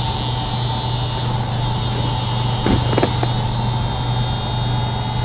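Ferrari 360 Spider's V8 engine idling steadily, with new intake manifold gaskets fitted to cure a vacuum leak, and a steady high tone over the engine note. A couple of light clicks come about three seconds in.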